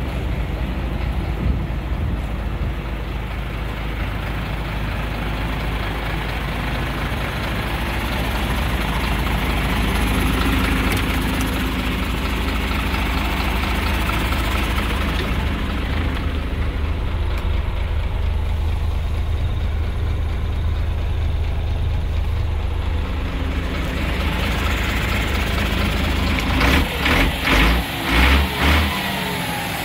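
Scania P 92 H 280 truck's six-cylinder diesel engine idling steadily. Near the end, four or five short, loud low thumps cut across it.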